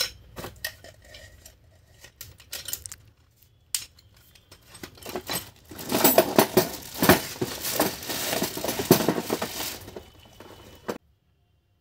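A few light clinks and knocks of steel chisel bits being handled in a plastic tool case. About five seconds in comes a stretch of loud crinkling as the rotary hammer is pulled out of its plastic wrapping, which cuts off shortly before the end.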